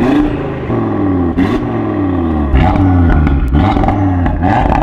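Audi TT RS's 2.5-litre turbocharged five-cylinder engine revved hard at standstill in a string of throttle blips, the pitch rising and falling away about six times; very loud at the exhaust.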